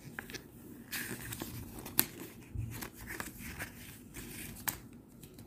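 Pages of a small paper instruction booklet being turned and handled, soft rustling with a few sharp paper flicks, one about two seconds in and another near the end.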